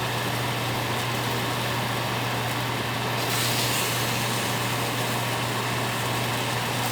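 Skin-on duck sizzling in a hot pan, a steady frying hiss over a constant low hum.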